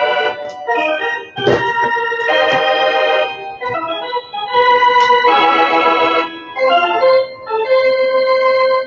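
Music: held keyboard chords that change about every second, with brief dips between some of them.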